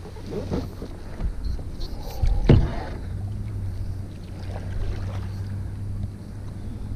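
A Field & Stream kayak being paddled: paddle strokes and water against the hull, with one sharp thump about two and a half seconds in and a faint steady low hum after it.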